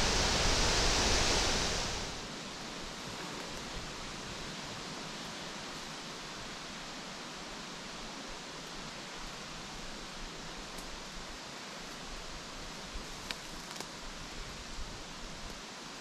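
Wind in the forest: a loud gust buffeting the microphone for about the first two seconds, then a steady hiss of wind through the leaves, with a few faint ticks near the end.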